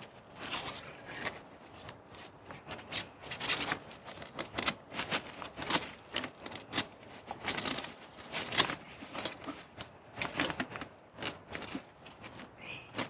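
Irregular rustling, crinkling and scraping of a large motorcycle luggage bag and the packing under it as hands work inside the bag, fitting an inner wall panel.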